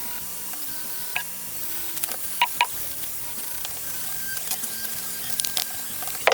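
Light background music over a steady hiss of cleaning work on a metal belt buckle, with a few sharp clicks: one about a second in, two in quick succession midway, and one at the end.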